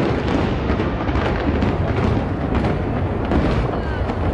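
Fireworks going off in a steady stream of rapid, overlapping bangs and crackles.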